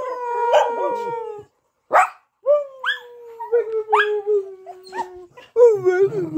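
Small black scruffy dog howling: long drawn-out howls that rise at the start and then slowly fall in pitch, the longest lasting almost three seconds, with a few short yips between them.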